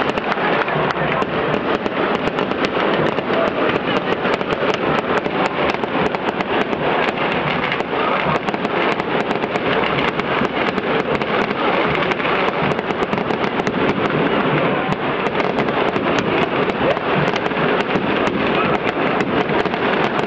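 Fireworks and firecrackers crackling in a continuous dense volley, many pops a second, over the steady roar of a packed stadium crowd.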